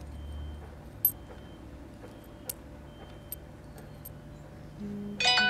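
Low hum with three light, sharp clicks spread through the quiet. Near the end a pitched musical phrase with a plucked string starts and is the loudest sound.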